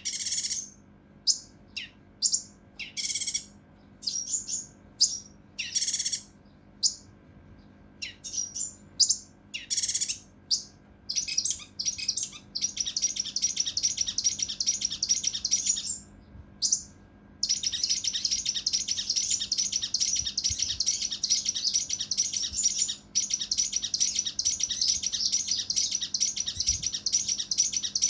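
Kinoi (cucak rante mas) songbird calling agitatedly: separate sharp, high calls at first, then from about halfway long, dense, rapid harsh trills that pause briefly once.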